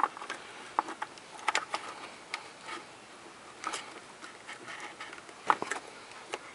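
Small irregular clicks and taps of a flat screwdriver prying at the plastic electrical connector of a radiator cooling-fan, working its locking tab loose.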